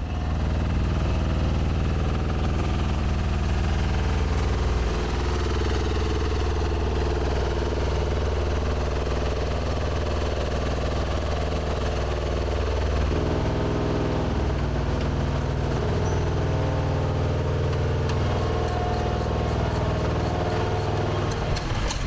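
Engine of an MJ-1B bomb-lift truck running steadily, changing pitch about halfway through as it works. A run of quick, even clicks comes near the end.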